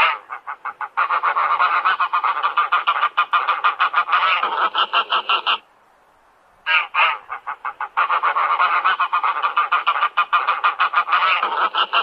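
Goose honking: rapid honks in two long runs, broken by a pause of about a second near the middle.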